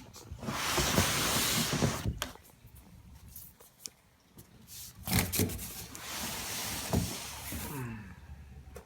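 Cardboard shipping box and packing scraping and rubbing as a guitar case is worked out of it, in two long stretches with a few knocks between and a short squeak near the end.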